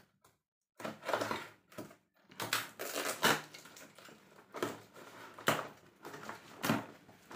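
Clear packing tape being peeled off a small cardboard box and the flaps pulled open: a string of irregular crackling rips and rustles with short pauses between them.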